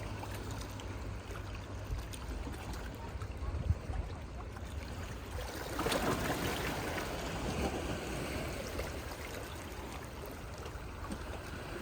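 Sea water washing and lapping, with a swell of water surging in about six seconds in.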